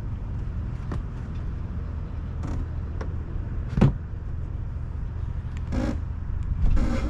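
An engine idling steadily with a low hum, and a single sharp knock about four seconds in.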